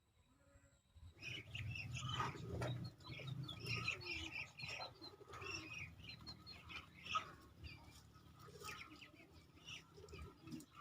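Birds chirping and calling, many short high notes, starting about a second in over a low background rumble.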